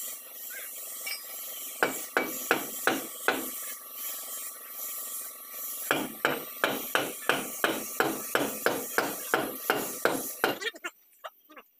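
Hammer tapping on metal at a truck's front wheel hub nut: a quick run of about five strikes, then a longer steady run of about three strikes a second that stops shortly before the end.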